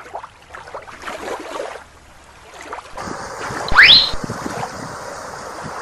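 Water sloshing in shallow water with wind on the microphone, irregular at first and then a steady hiss. About four seconds in comes a short, quick rising whistle, the loudest sound.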